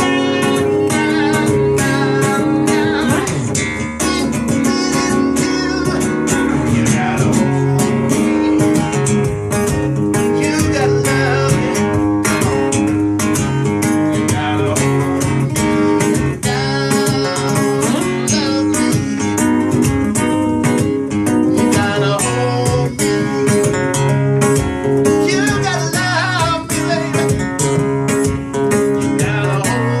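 Solo live performance on a nylon-string acoustic-electric guitar, strummed hard in a fast, steady rhythm, with a man's singing voice coming in at times.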